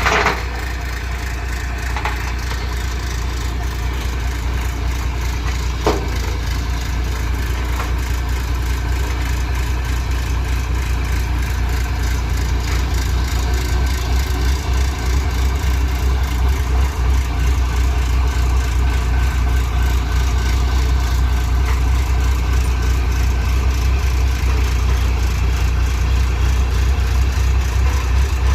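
Heavy vehicle engine running with a deep low rumble, getting louder and more uneven from about halfway through.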